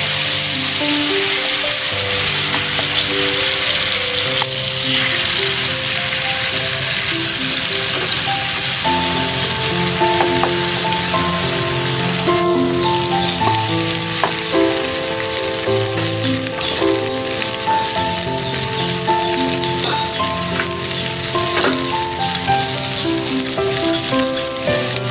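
Hot oil sizzling in a frying pan as chili spice paste fries, later with an egg scrambled into it, under piano background music.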